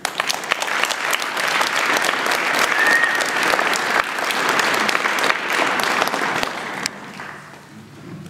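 Audience applauding, starting abruptly and tapering off near the end.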